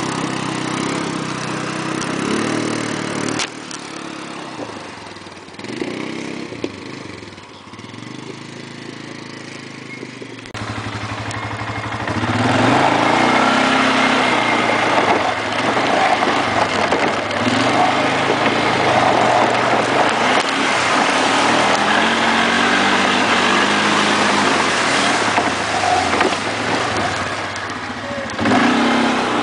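ATV engine running. First a quad crosses standing water, then after a quieter few seconds a Polaris ATV's engine is heard from on the machine. From about ten seconds in its pitch rises and falls again and again as the throttle is worked.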